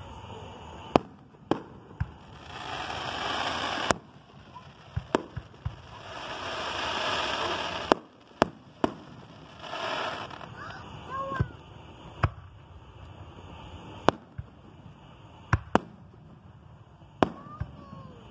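Aerial fireworks going off: a string of sharp bangs at irregular intervals, some in quick pairs, with a few longer stretches of hissing noise in between.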